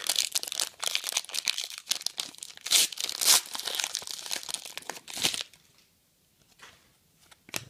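Foil trading-card pack torn open, its wrapper crackling as the stack of cards is pulled out. The crinkling is loudest around three seconds in and stops about five and a half seconds in, leaving only a few faint clicks.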